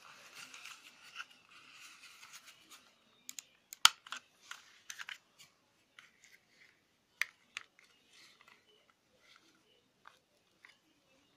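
Plastic handling sounds of a black wireless computer mouse being turned and pressed in the hands: rubbing and scraping for the first few seconds, then a scatter of sharp plastic clicks and snaps, the loudest about four seconds in.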